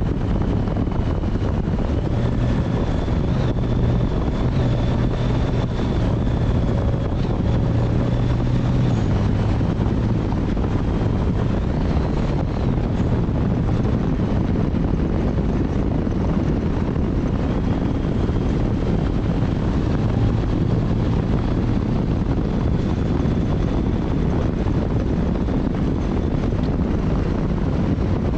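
Motorcycle riding at road speed: the engine running steadily under heavy wind noise on the microphone.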